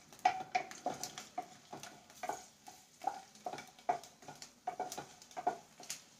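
Wooden spatula stirring and knocking against a non-stick kadhai, about two or three short knocks a second, each with a brief ring from the pan. Underneath, garlic, dried red chillies and cumin sizzle faintly in hot mustard oil.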